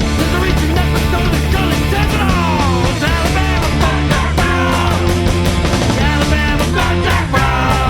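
Punk rock song, a studio mix of a three-piece band: electric guitar, bass guitar and drums playing loud and steady, with sliding guitar or vocal lines a few seconds in.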